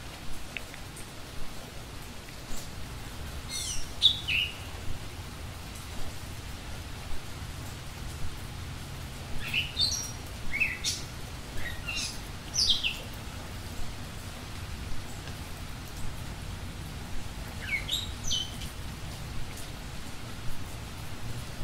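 Bird calls slowed to a quarter of their speed, so they come out lower and drawn out: short chirps that sweep downward, in a cluster about four seconds in, a longer run from about nine to thirteen seconds, and another near eighteen seconds. Underneath is a steady hiss with scattered soft pops.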